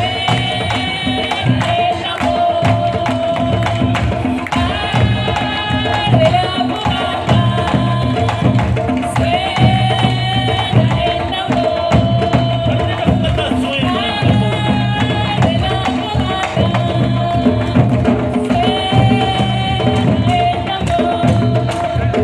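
Live candombe: a group of hand drums playing a dense, driving rhythm under voices singing a short refrain that comes back about every four to five seconds.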